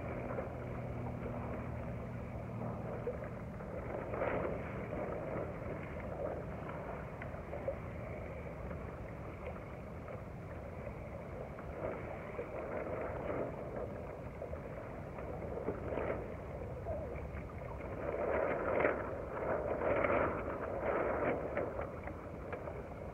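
Water splashing and washing against the hull of a small sharpie sailboat under way through light chop, in irregular surges.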